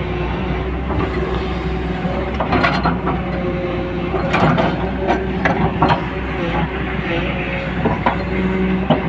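Heavy diesel machinery running steadily, with a string of sharp metal clanks and knocks through the middle and another pair near the end.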